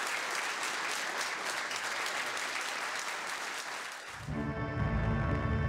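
Audience applauding steadily; about four seconds in the clapping cuts off and background music with low sustained notes comes in.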